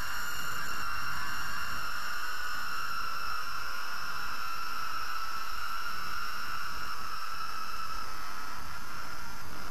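Electronically processed drone: an even hiss with several high tones held over it, the strongest slowly sinking in pitch, with no breaks or beats.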